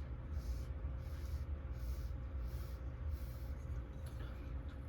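Soft, irregular crunching of chewing on crisp fried wontons, over a steady low hum.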